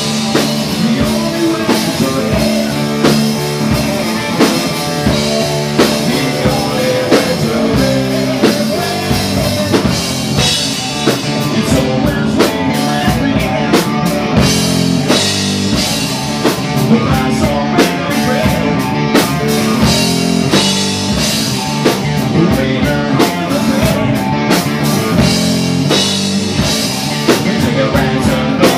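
Loud live rock band playing: distorted electric guitars over a drum kit.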